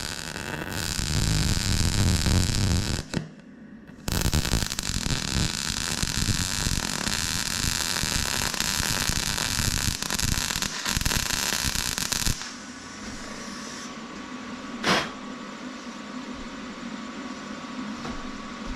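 Welding arc crackling in two long runs with a short break about three seconds in. It stops about twelve seconds in, leaving a fainter hiss with one brief burst of crackle around fifteen seconds.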